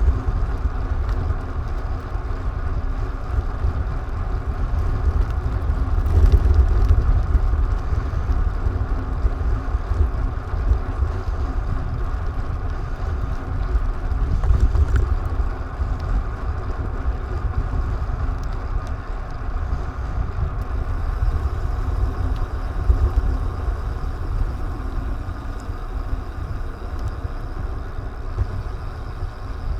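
Steady vehicle running noise heard while riding, with wind rumbling on an action-camera microphone. It swells briefly a few times.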